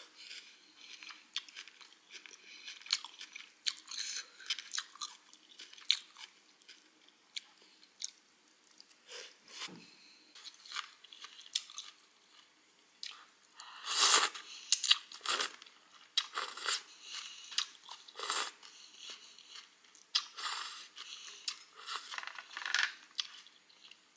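A person chewing and eating chicken and glass noodles close to the microphone: a string of small crunchy, wet clicks, with louder bursts about halfway through and again near the end.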